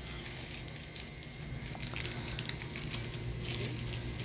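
Quiet store ambience: a steady low hum with faint background music and a few small ticks and rustles.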